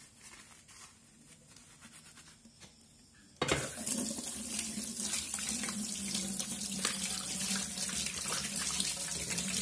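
Faint brushing as a baby bottle teat is scrubbed with a bottle brush. About three and a half seconds in, a tap is turned on and water runs steadily into a stainless steel sink as the soapy teat and cap are rinsed under it.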